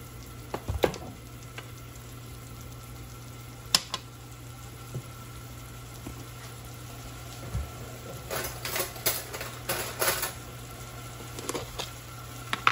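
Ground pork cooking over low heat in a small saucepan, giving a soft steady sizzle over a low hum. A few sharp clicks are heard, with a run of clattering kitchen handling noises about two-thirds of the way through.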